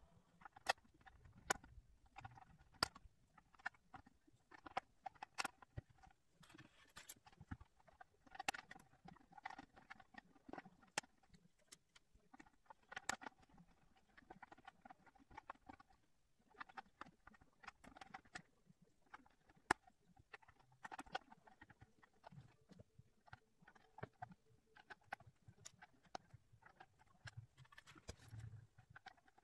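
Small plastic 3D puzzleball pieces clicking and tapping irregularly as they are handled and pressed into place on the ball.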